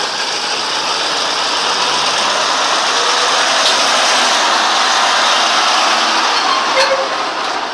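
Diesel engine of a Nissan Diesel fuel tanker truck running as the truck turns past close by, its noise swelling as it draws nearest in the middle.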